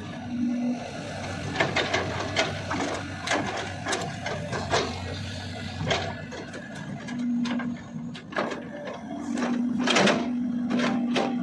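CAT 320DL long-arm excavator working: the engine runs under a steady whine that comes in briefly at the start, again around seven seconds, and holds from about nine seconds on, with many irregular sharp knocks and clanks throughout, the loudest about ten seconds in.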